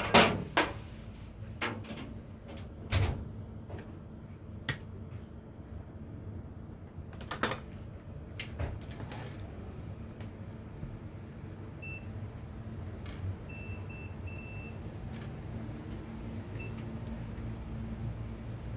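Sharp clicks and taps, the loudest right at the start, then several short, high electronic beeps from about two-thirds of the way in, some in a quick run, over a steady low hum.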